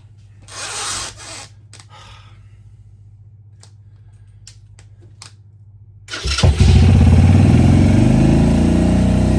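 A 125cc café racer's single-cylinder four-stroke engine, its carburettor freshly rebuilt and primed with fuel, catches and fires up about six seconds in after a few quiet clicks. It then runs loud and steady, the revs climbing briefly before holding: the rebuilt carb has cured the hard starting.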